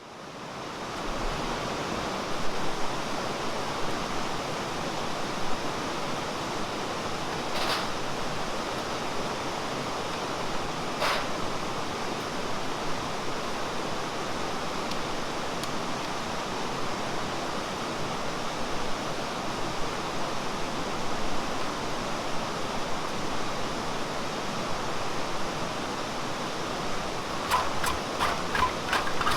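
Mountain stream rushing steadily over rocks, a continuous water noise. Near the end a rapid run of light ticks joins it.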